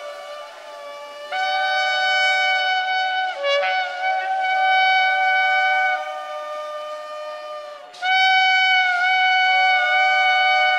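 Two shofars (ram's horns) blown together in long held blasts, sounding at two different pitches at once. A blast starts about a second in, wavers and breaks briefly in the middle, goes weaker for a couple of seconds, and a loud new blast begins about eight seconds in.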